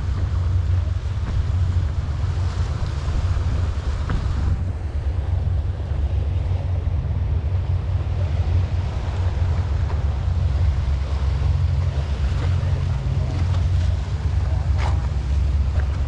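Wind buffeting the microphone in a steady low rumble, with the wash of sea waves under it and a single sharp click near the end.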